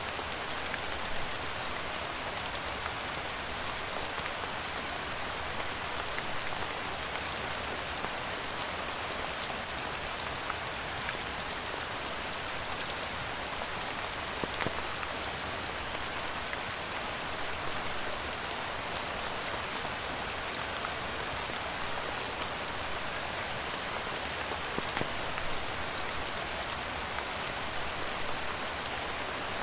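Steady rain falling, an even hiss with now and then a louder single drop ticking out of it.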